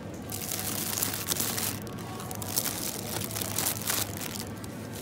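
Plastic grocery packaging crinkling and rustling in irregular bursts as packs of strawberries and a bag of bean sprouts are moved around in a plastic shopping basket.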